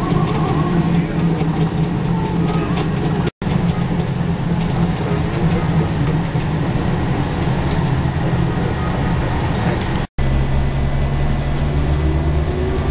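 Diesel railcar engine running steadily, heard from inside the driver's cab, with wheel and track noise. The sound drops out for an instant twice, about a quarter of the way in and near the end, and after the second break the engine's low tone is steadier.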